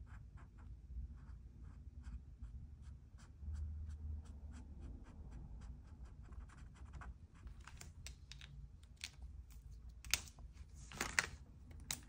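Felt tip of an acrylic marker tapping and scratching on a canvas panel in short quick strokes, several a second. Near the end come a few louder clicks and a rustle as the marker is capped and set down.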